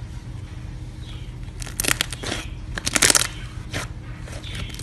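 Thick white slime being pressed and stretched by hand, giving off clusters of sharp clicking pops, loudest about three seconds in, over a steady low hum.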